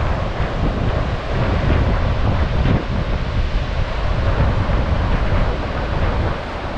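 Wind buffeting the microphone: a loud, gusty low rumble over a steady rushing hiss, easing a little near the end.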